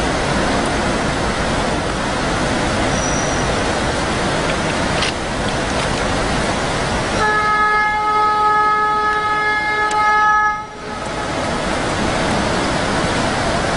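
Steady rushing roar of a large waterfall. About seven seconds in, a train horn sounds one long, steady blast for about three and a half seconds, then cuts off sharply.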